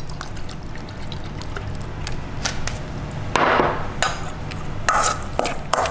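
Kitchen handling sounds while a poke bowl is dressed and mixed: utensils and containers tapping and clicking against a bowl. A short rushing burst comes about three and a half seconds in.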